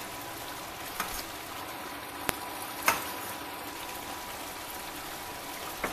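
Chicken curry in coconut milk simmering in a metal pan, a steady bubbling hiss. Three sharp clicks, the metal spoon knocking the pan, about one, two and three seconds in.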